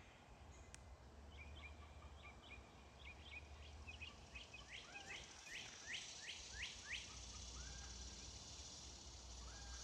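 Faint songbird song: a run of short, quick sweeping whistled notes that come faster and louder over several seconds. After about seven seconds a steady high cicada buzz rises in.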